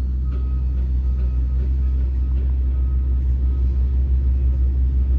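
A steady low engine rumble running without change.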